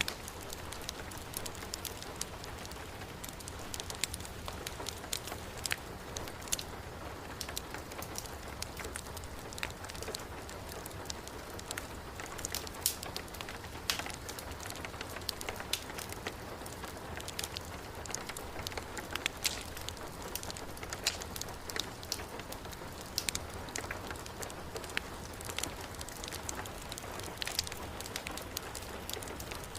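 Heavy rain falling steadily, mixed with a crackling wood fire whose short, sharp pops come irregularly throughout.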